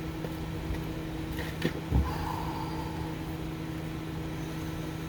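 Steady mechanical hum with two sharp knocks of tools or parts being handled about two seconds in, the second louder, then a brief rustle.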